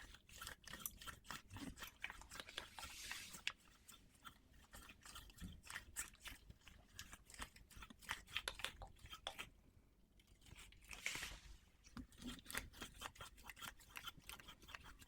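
Scissors snipping again and again through something thick, a quiet run of short crisp snips and crunches at an uneven pace of a few per second, with a brief pause about ten seconds in.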